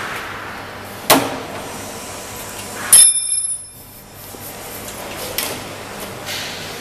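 Knocks and clatter from hands and tools working on a metal machine housing: a sharp knock about a second in, then a louder metallic clang with high ringing near three seconds, and lighter knocks later.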